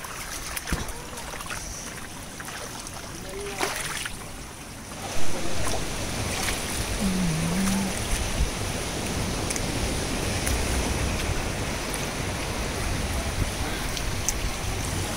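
Shallow sea water washing and lapping around rocks at the shoreline. A sudden bump comes about five seconds in, then a louder, steady wash of surf with a low rumble.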